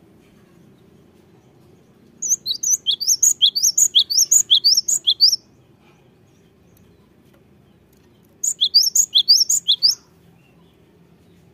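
Cinereous tit (gelatik batu) singing: a bout of rapid, high, repeated whistled notes lasting about three seconds, then after a pause a second, shorter bout of the same notes near the end.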